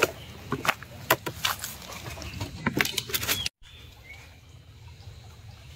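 Irregular clicks and knocks of plastic fishing gear being handled, a tackle basket and its lid, for about three and a half seconds. It then cuts off suddenly, leaving a quieter steady hiss of creekside ambience.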